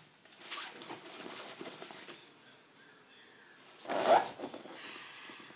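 Hands rummaging through a pink plastic and fabric package, giving a hissing, zipper-like rasp, with a short, louder rasp about four seconds in.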